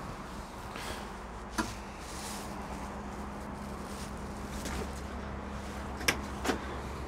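Excavator cab door latch clicking twice as the door is unlatched, with a knock about a second and a half in, over a steady low hum.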